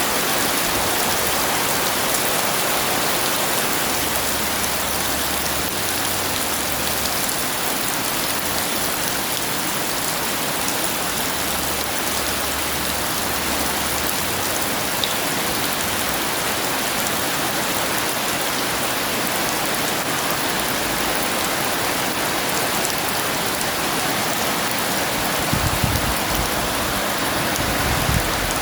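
Heavy rain falling steadily, a dense even hiss of drops on surfaces, with a low rumble near the end.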